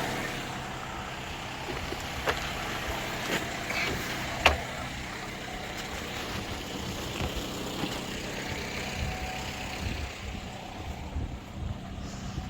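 Toyota RAV4's four-cylinder engine idling steadily on fresh oil, with a few sharp clicks over it, the loudest about four and a half seconds in.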